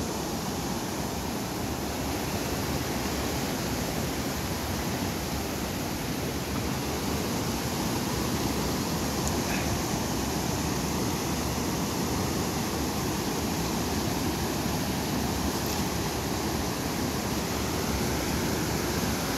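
Small mountain river rushing steadily over boulders and through rapids.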